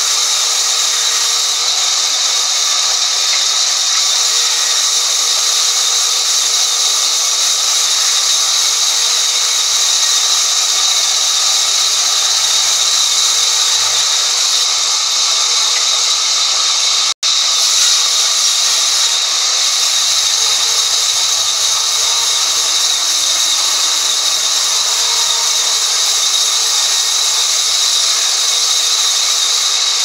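Horizontal band sawmill blade cutting lengthwise through a mahogany log: a loud, steady, high-pitched hiss and whine. It breaks off for an instant about seventeen seconds in.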